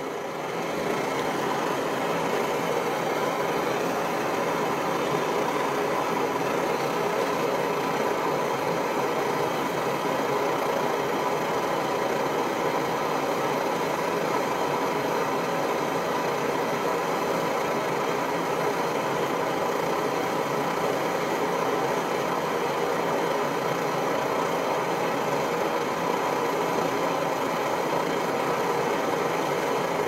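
PT-1 kerosene pressure stove (primus) burning on its original, non-silent burner bell, giving a steady, even noise that does not change. It measures about 73 dB on average.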